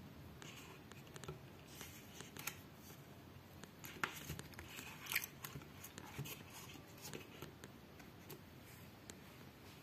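Faint clicks and rustles of a plastic vegetable peeler being handled and lifted out of the moulded insert of a knife-set box, with the sharpest clicks about four and five seconds in.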